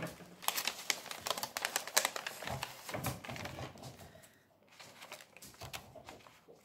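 Gift-wrapping paper crinkling and rustling as a wrapped package is handled and unfolded, in a run of quick crackles that eases off for a moment past the middle.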